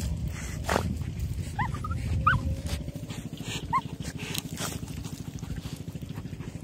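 Dogs sniffing and digging with their muzzles in a field-rat burrow: scratching in soil and straw, a few short high squeaks between about one and a half and four seconds in, then fast, even snuffling.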